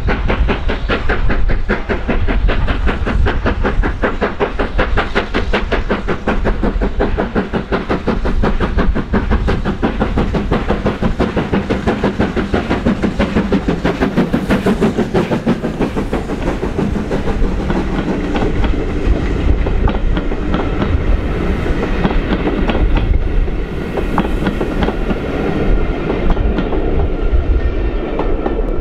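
A steam-hauled train passing, its wheels clattering over the rail joints in a fast, even beat that loosens in the second half.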